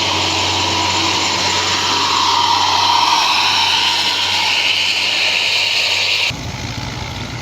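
Tour bus engine working hard up a steep climb close by: a loud, steady mechanical noise with a whine that swells and then eases. About six seconds in it cuts off suddenly, giving way to a quieter engine sound.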